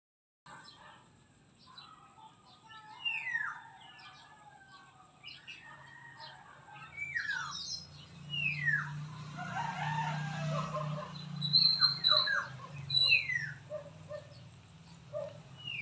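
Bird calling: a short whistled note sliding down in pitch, repeated about every two seconds, with other scattered chirps between.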